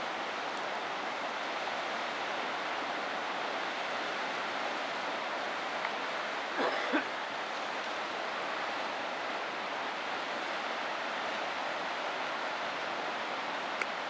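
River rapids rushing in a steady, even hiss of whitewater, with one brief short sound a little past halfway through.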